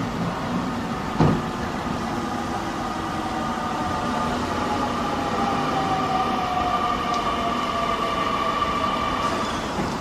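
Nishitetsu electric train stopping at the station: a whine that falls slowly in pitch as it slows, cutting off just before the end. A single sharp knock about a second in.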